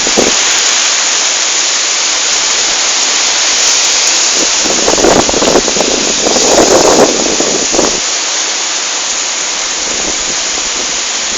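Heavy storm rain pouring steadily, with gusts of wind buffeting the microphone about halfway through, easing a little toward the end.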